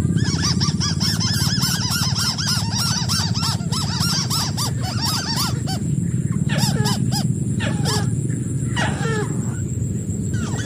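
White-browed crake calling: a fast chattering series of nasal notes, about four or five a second, followed near the middle by a few longer falling calls. A steady low rumble runs underneath.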